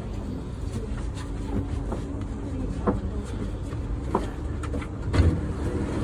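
Inside a BTS Skytrain EMU-B1 car as it stops at a station: a steady low rumble with a faint hum, a few sharp clicks, and a louder thump about five seconds in, around the time the doors open.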